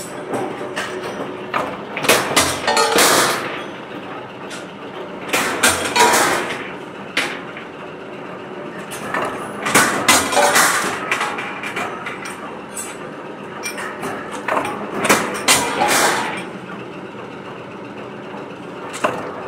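Power press working a steel sprocket blank. The machine runs steadily, and about every four to five seconds there is a burst of loud metallic clanking and knocking lasting about a second.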